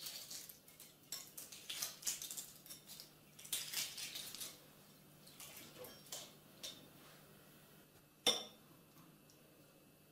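Fingers peeling the shell off a steamed soft-boiled egg over a ceramic plate: quiet, irregular crackles and small clicks of shell, with one sharper clink about eight seconds in.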